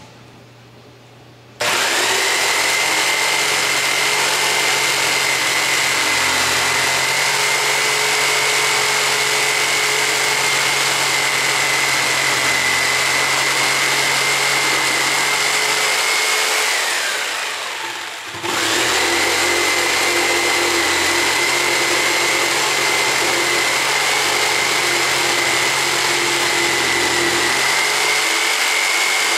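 Electric drill boring holes in lumber: it spins up to a steady high-pitched whine, runs about fifteen seconds, winds down, then starts again for a second long run.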